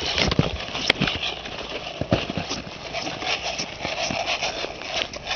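Hurried footsteps crunching through dry leaves and brush, with vegetation rustling. There is one sharp click about a second in.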